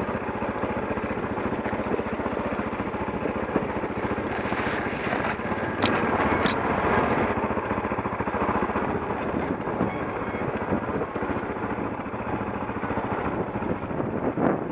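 KTM 640 Adventure's single-cylinder engine running steadily as the motorcycle is ridden slowly along a rough, rocky track. There are two sharp clicks about six seconds in.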